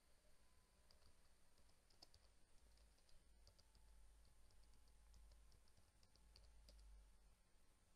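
Very faint computer keyboard typing: a run of quick, irregular key clicks as a word is typed out.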